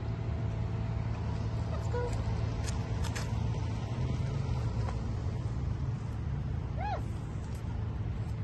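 Steady low rumble of distant road traffic, with a few faint clicks and one brief high squeak near the end.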